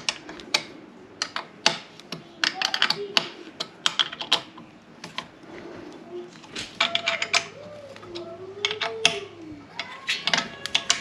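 Small metal parts clicking and clacking in quick irregular clusters as bolts and nuts are handled and fitted through a light bar bracket onto an aluminium roof-rack bar.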